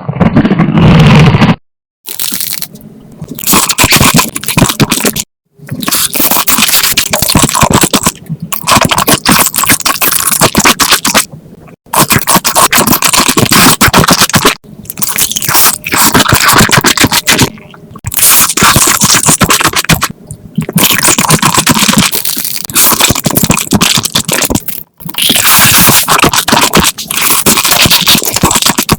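Loud, close-miked crunching and chewing of crisp food, in runs of a few seconds broken by short pauses.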